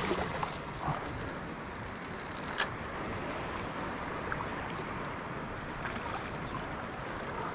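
Steady wash of wind and shallow water lapping around a wading angler, with a single sharp click about two and a half seconds in.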